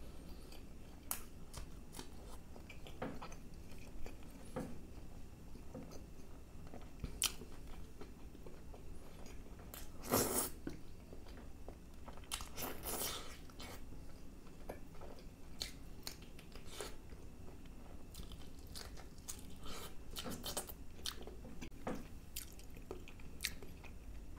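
Close-miked eating: chewing and biting into chicken masala, naan and green chilli, with scattered wet clicks from the mouth. The loudest bites come about ten and thirteen seconds in.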